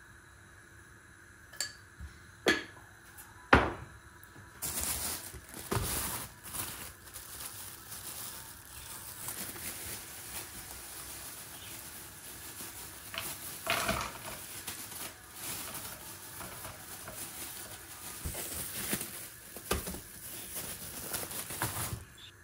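A few sharp clinks of a spoon against a pot, then, about four seconds in, a long stretch of plastic-bag rustling and pattering as frozen mantı dumplings are tipped from the bag into the pot.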